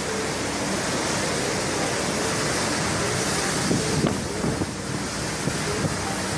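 Hurricane-force wind and driving rain make a steady rushing noise, with gusts buffeting the microphone.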